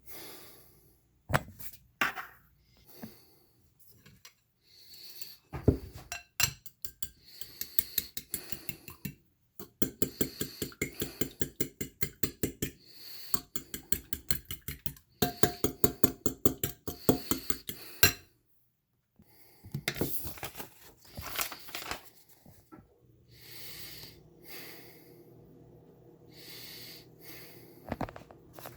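Kitchen utensils clinking and knocking against dishes: a few scattered knocks, then a long run of quick, even strokes, about four or five a second, then more scattered knocks.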